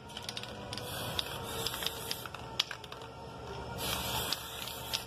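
Aerosol can of metallic copper spray paint hissing in short bursts as it sprays, the longest and strongest burst near the end, with scattered light clicks in between.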